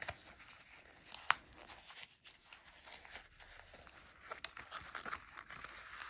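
A vinyl pouch is being crumpled and worked right side out by hand: soft crinkling and rustling with a few sharp clicks, the loudest about a second in and another a little past four seconds.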